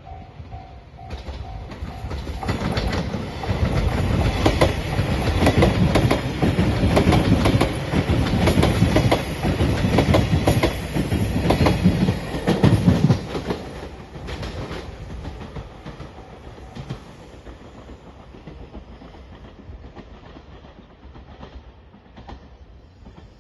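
A five-car JR Shiokaze electric limited express passes over a level crossing, its wheels clattering over the rail joints. It comes in over the first few seconds, is loudest for about ten seconds, then fades away. A repeating crossing-bell tone is heard at the very start, before the train drowns it out.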